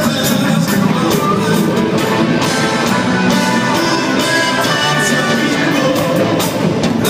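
Live rock band playing at a concert, with drums beating steadily under pitched instrument lines.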